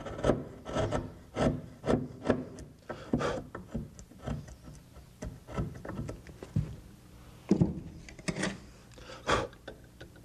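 Wood chisel paring out a hinge mortise in a door edge by hand: a string of short, irregular scraping cuts into the wood, a few of them louder near the end.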